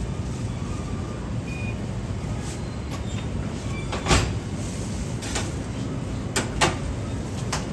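Steady low rumble of busy background noise with a few sharp clacks, the loudest about four seconds in and a quick pair a couple of seconds later.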